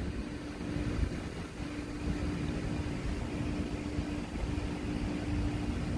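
Steady outdoor background hum: a low rumble with a constant droning tone, the kind given off by nearby machinery such as air-conditioning units or by traffic, with the tone dropping out briefly twice.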